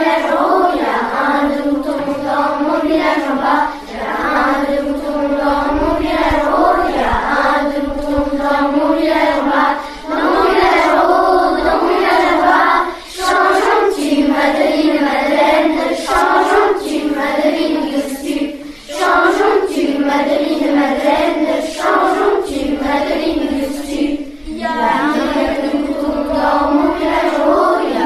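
A group of primary-school children singing together in unison, in sustained phrases with brief breaks between them.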